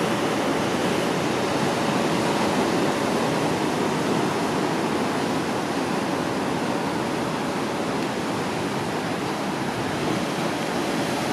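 Ocean surf breaking and washing over rocks along a rocky shore, a steady, even rush of water noise.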